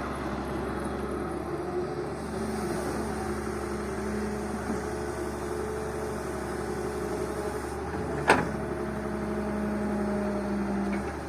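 Diesel engine of an excavator running under load while loading sand, its pitch stepping up and down as it works. A single sharp knock about eight seconds in.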